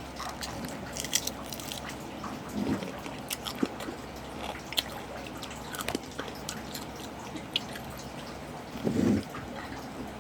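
A person biting and chewing crunchy food close to the microphone: scattered crisp crunches and mouth clicks. A brief low muffled sound comes about 3 s in and a louder one near 9 s.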